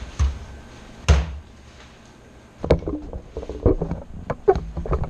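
Knocks and clicks of hard objects being handled: a thump at the start, a louder sharp knock about a second in, then a quick run of taps and clicks over the last couple of seconds.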